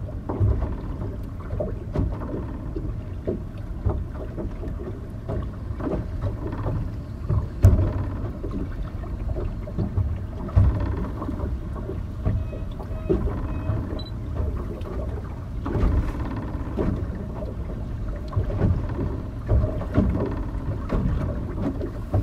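Wind buffeting an outdoor microphone: a steady low rumble with irregular gusty thumps, the strongest about seven and a half seconds in.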